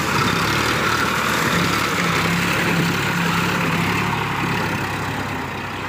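Sonalika tractor's diesel engine running steadily under load, pulling a rotary tiller through wet paddy mud.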